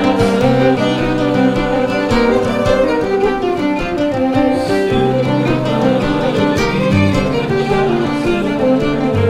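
Church ensemble led by violins playing a fiddle tune from a set of traditional tunes. A moving melody runs over long, held bass notes.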